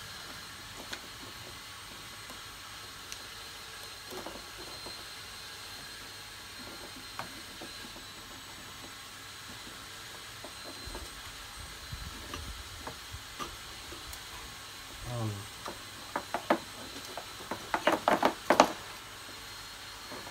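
Hand tools clicking and knocking against metal parts in a car's engine bay, sparse at first, then a quick run of sharp, loud clicks and clanks over the last few seconds.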